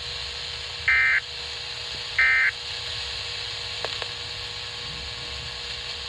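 Two short bursts of SAME digital data tones on a weather-radio alert broadcast, each a buzzy two-tone warble about a third of a second long, about 1.3 s apart, over a steady radio hiss. Three short bursts a second apart like these make up the end-of-message signal that closes an alert. Two faint clicks follow about four seconds in.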